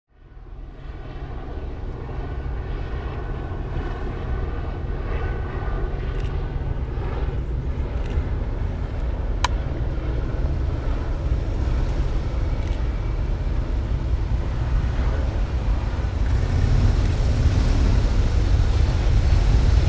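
Police motorcycles and patrol cars of a procession approaching, a steady low engine rumble growing louder toward the end. A single sharp click about halfway.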